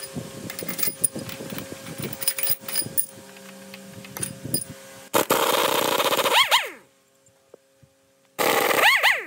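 Metal tools tapping and clattering on parts, then two short bursts of a spinning power tool. Each burst ends with a whine that falls in pitch as the tool winds down.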